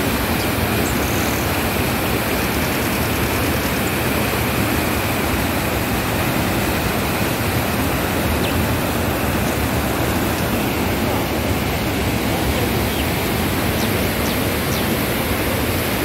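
Fast mountain stream rushing and tumbling over boulders in white-water cascades: a steady, unbroken rush of water.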